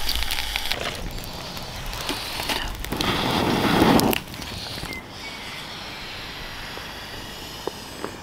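Twig fire crackling in a small stainless-steel wood-burning camp stove while sticks are pushed in. A louder scraping rustle builds about three seconds in and stops suddenly just after four seconds, leaving a quiet steady hiss with a few faint ticks.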